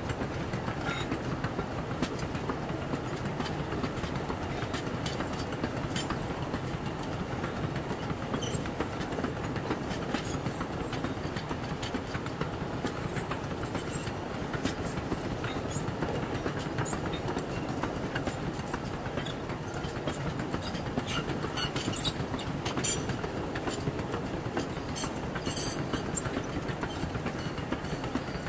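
Loaded sugarcane bins of a cane train rolling past close by: a steady rumble of steel wheels on the rails, with clicks and short high-pitched wheel squeals several times.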